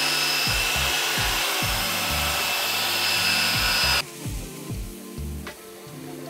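Cordless drill spinning a paint-mixer paddle through a thick grain mash, a steady whine that cuts off suddenly about four seconds in.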